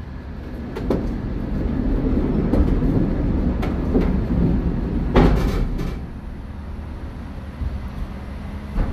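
Forklift working inside a steel shipping container: a low rumble that swells for a few seconds, with a series of metallic clanks and knocks, the loudest about five seconds in.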